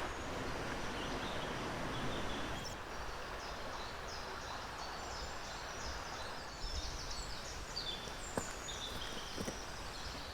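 Several small birds calling, short high chirps scattered over a steady outdoor hiss, becoming busier in the second half, with a sharp tick near the end.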